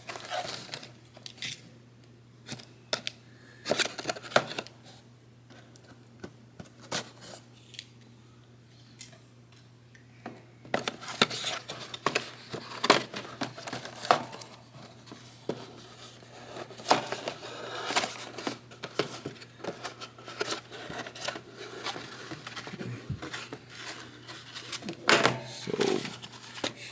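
A cardboard model-kit box being opened by hand: scattered clicks and taps of the lid and flaps, then, from about ten seconds in, steadier rustling and crinkling of the packaging and its contents.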